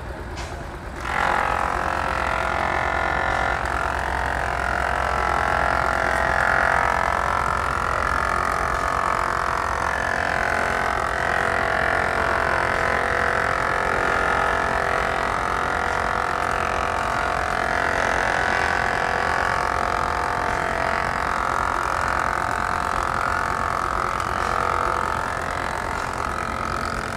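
Antique belt-driven wood planer cutting a board, a steady high buzzing that sets in suddenly about a second in and holds, over the steady running of the John Deere tractor engine that drives it by flat belt.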